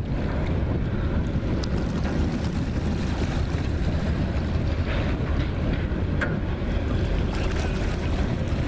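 Steady low rumble of an M3 amphibious bridging vehicle's diesel engine as it drives into the river and pushes through the water, mixed with wind buffeting the microphone.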